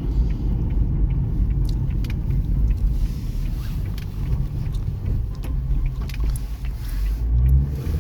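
Car driving in town, heard from inside the cabin: a steady low rumble of engine and tyres on the road.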